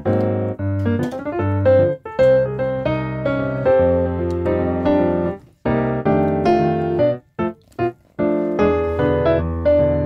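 Background piano music: chords and melody notes struck and left to ring, with two short pauses, after about five and seven seconds.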